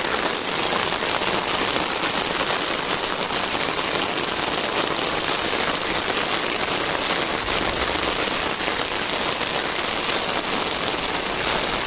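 Steady rain falling, a dense even hiss of drops on water, mud and leaves.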